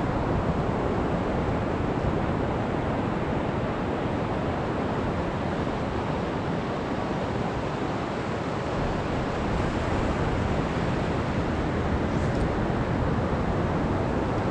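Steady wash of surf breaking and running up the beach, mixed with wind rumbling on the microphone.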